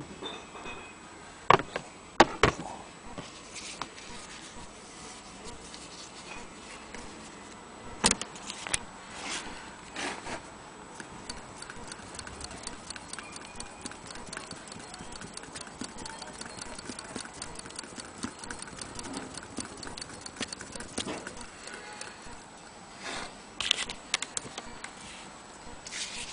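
Willcox & Gibbs single-thread chain-stitch sewing machine running while it sews a seam through velvet: a rapid, even ticking of its mechanism that lasts about ten seconds in the middle. Sharp clicks and knocks of the machine and fabric being handled come before and after it.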